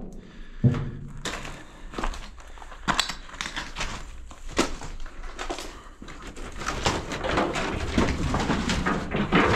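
Footsteps and handling noise on gravel and debris: scattered crunches, knocks and clicks, building into a denser, steadier scraping rustle over the last few seconds.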